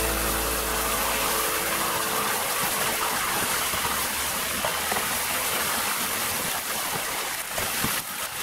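Liquid nitrogen boiling hard around a balloon held under with plastic tongs: a steady rushing hiss like running water.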